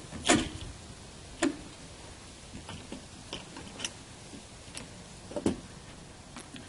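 Scattered clicks and knocks, about seven in all, as a plastic handle and its clamp are slid off an aluminium trimmer drive-shaft tube and set down. The loudest knocks come just after the start and about five and a half seconds in.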